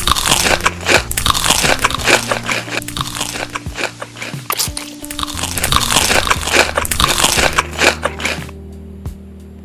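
Loud, close-up crunching of someone biting and chewing crisp food, dense crackly crunches that die away about a second before the end, over background music with long held notes.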